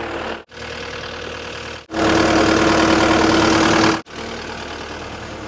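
Engine idling steadily, in short pieces that cut off abruptly three times. The middle piece is louder, with a steady whine over the engine.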